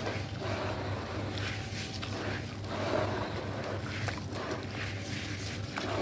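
Gloved hands squeezing and kneading water-soaked red sand in a bowl: wet squelching and sloshing in repeated strokes, about one a second, over a steady low hum.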